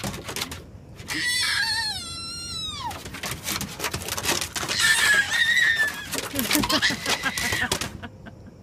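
Toddler squealing and shrieking with excitement, high-pitched cries that slide down in pitch, with quick footsteps tapping on wooden deck boards.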